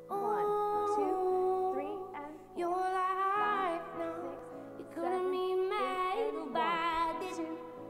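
Recorded music: a woman singing a slow song in four long phrases of held, wavering notes over a soft, steady accompaniment.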